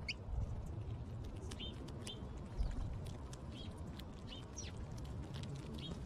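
House sparrows chirping in short single notes, some sliding down in pitch, about eight in six seconds, over light splashing of water as a sparrow bathes in a stone bird bath. A low thump about two and a half seconds in.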